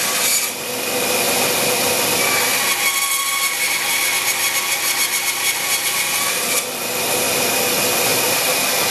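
Band saw running and cutting into a wooden windmill blade blank: a steady whine of blade and motor, with a rapid, even fluttering rasp for a few seconds in the middle as the blade bites into the wood.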